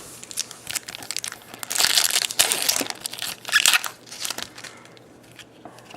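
Trading-card pack's foil wrapper being torn open and crinkled in the hands: a run of crackly bursts, loudest in the middle, dying away after about four and a half seconds.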